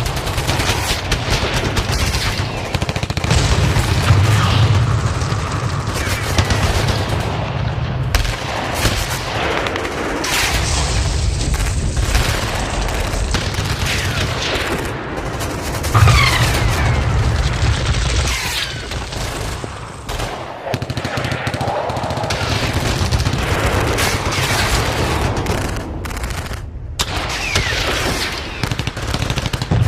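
Battle sound effect: dense, continuous automatic gunfire and rifle shots, with a louder boom about halfway through.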